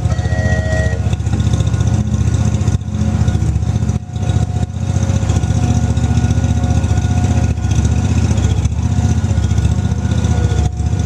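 Small engine of a miniature zoo ride train running steadily while under way, with a rapid even pulse.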